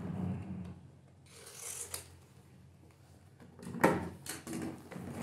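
Cardboard box being unsealed and opened: a cutter scraping through the box's seal, cardboard flaps rubbing and rustling, with a sharp knock nearly four seconds in.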